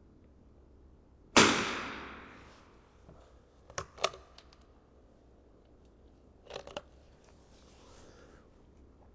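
A single .22 LR rifle shot with a long echoing tail. It is followed by a few sharp metallic clicks, twice, as the rifle's action is worked.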